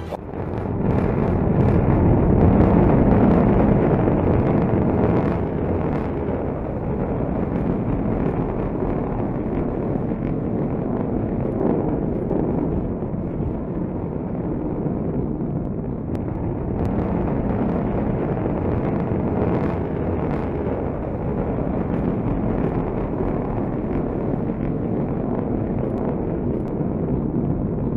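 Submarine-launched ballistic missile's solid-fuel rocket motor firing in flight: a steady, deep rumbling noise with scattered crackle, loudest a few seconds in.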